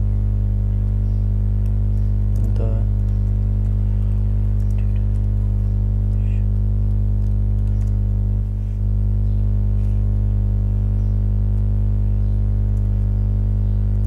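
Loud, steady electrical mains hum with a buzzy row of overtones, briefly dipping about eight and a half seconds in, with faint clicks of computer-keyboard typing.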